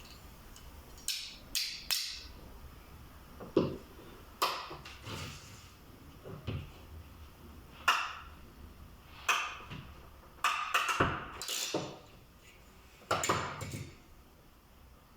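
Irregular clicks and knocks, about a dozen, from a hand crimping tool and cable being handled while pins are crimped onto the cable's conductors, bunching together near the end.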